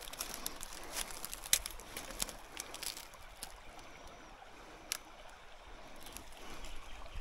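Faint trickle of a small bush creek, broken by scattered light clicks and crackles, the sharpest about a second and a half in and again near five seconds.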